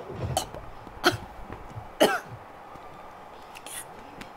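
A woman coughing three times, about a second apart, just after swallowing a shot of vinegar that catches in her throat.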